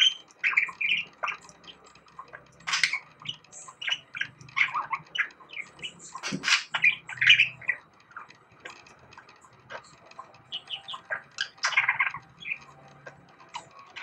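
A budgerigar warbling and chattering in a quick string of short chirps, squawks and whistled notes. It mixes in a mimicked Chinese bulbul call, learned from a person's whistling.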